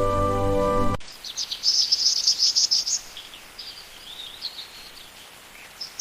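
Background music for about a second, cut off abruptly, then small birds chirping in quick, high-pitched runs of notes, with softer scattered calls after that.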